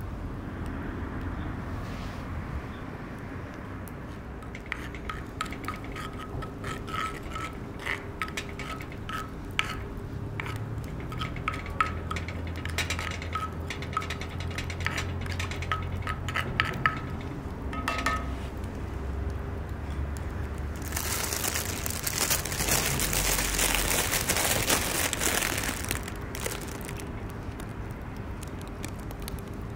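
Metal cooking utensils and cookware clinking and tapping many times in quick succession, each clink ringing briefly. Near the end comes a loud hiss lasting about five seconds.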